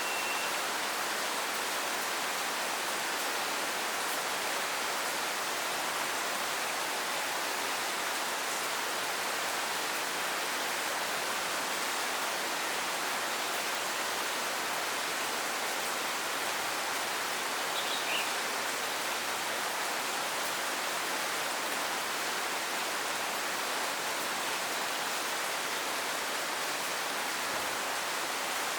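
Steady rain falling, an even hiss with no let-up. A faint short chirp sounds about 18 seconds in.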